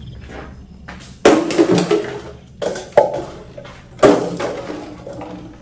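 Loud knocks and clatter of hard objects being moved or bumped, in four clusters over about three seconds, each trailing off with a short ring.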